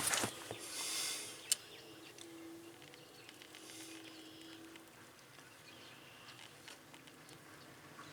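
Quiet working noise with a single sharp click about a second and a half in, and a faint buzz that comes and goes.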